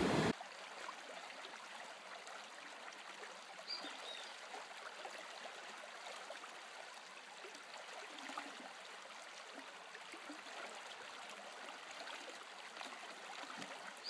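Faint, steady trickling and bubbling of water.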